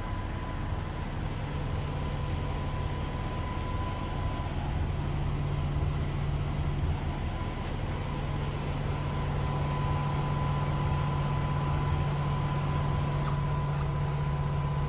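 DAF XF106's Paccar 480 bhp diesel engine idling, heard from inside the cab as a steady low hum. The hum grows a little stronger about five seconds in, and a faint steady high tone sits above it.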